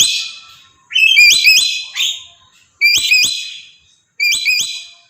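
A bird calling in short repeated phrases of two or three quick upswept whistled notes, about one phrase a second.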